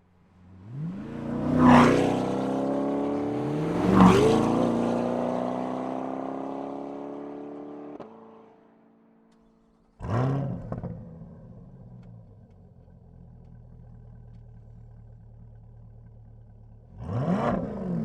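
2021 Chevrolet Corvette C8 Stingray's 6.2-litre V8 through Flowmaster cat-back exhausts, in two edited recordings. In the first, the engine flares up loudly, is blipped again, then settles to a steady idle that fades out. In the second, the engine catches with a sudden loud flare, idles steadily and is revved once near the end.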